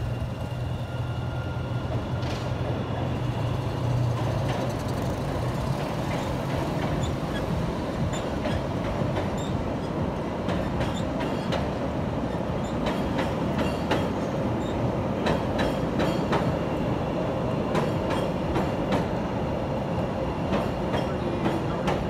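CTA 'L' rapid transit train running over an elevated steel structure, with a steady rumble of wheels on rail and steel. From about halfway through, rapid wheel clicks over rail joints join in and grow more frequent.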